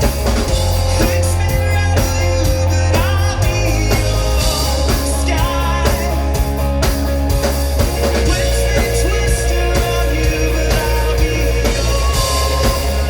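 Live rock band playing loudly, with electric guitars, bass and drum kit.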